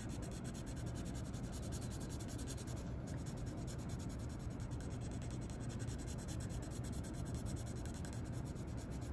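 Graphite pencil shading back and forth on paper, a steady scratching as a dark area is filled in.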